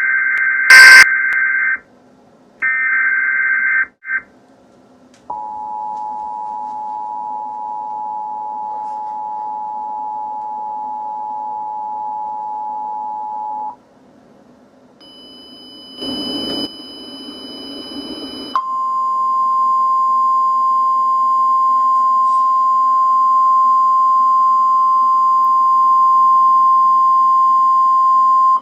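Emergency Alert System tones: warbling SAME header data bursts (two full and one cut short) with a loud click about a second in, then the two-tone EAS attention signal held for about eight seconds. After a short noisy stretch with faint high beeps, the steady single-tone NOAA Weather Radio warning alarm sounds for the last ten seconds.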